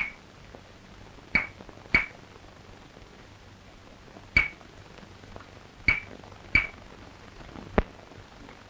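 Hyoshigi, the hardwood clappers of a night watch, struck in sharp ringing clacks, about seven in all, some in pairs about half a second apart.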